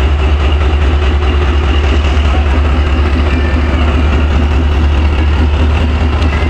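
Pakistan Railways diesel-electric locomotive running close by, its engine making a loud, steady deep rumble.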